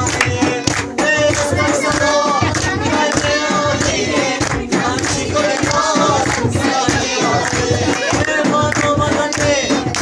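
Live Tajik folk music: singing over a steady frame-drum beat, with hand clapping along.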